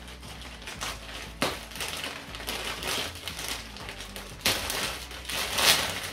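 Plastic mailer bag crinkling and crackling as it is pulled and torn open by hand, with sudden louder crinkles about a second and a half in and again from about four and a half seconds.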